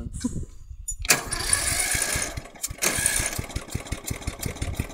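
Riding lawn mower engine running with an even, rapid firing beat; it surges louder twice, about a second in and again around three seconds in, then settles back.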